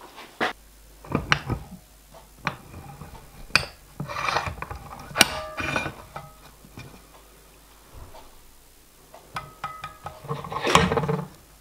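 Metal clinks and knocks at a steel bench vice as small sheet-metal pieces and a former are set in the jaws and worked by hand. Some knocks ring briefly, and there is a closer cluster of clatter near the end.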